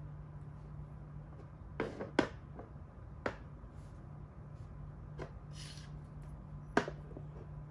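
Makruk (Thai chess) pieces being moved by hand and set down on the board: a handful of light, sharp knocks, the loudest a quick pair about two seconds in and another near the end. A faint steady low hum lies beneath.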